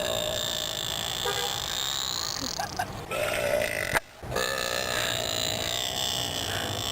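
A woman belching several times in a row: loud, drawn-out burps. There is a brief sudden gap about four seconds in.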